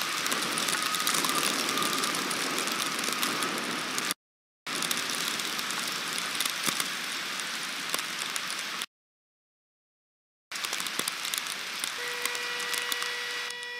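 Heavy rain beating on the nest webcam, a dense hiss dotted with small ticks of drops striking the camera. It breaks off to dead silence twice, and a steady hum comes in near the end.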